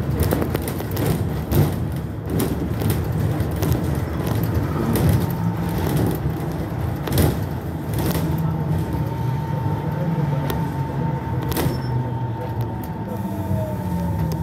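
A trolleybus in motion, heard from inside: a steady low rumble with frequent rattles and knocks from the body over the road. Near the end a motor whine falls in pitch as it slows.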